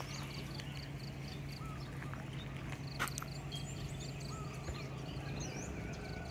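Outdoor rural ambience of small animals calling: a high chirp repeating about four times a second with scattered short chirps, over a low steady hum that stops near the end. One sharp click about three seconds in.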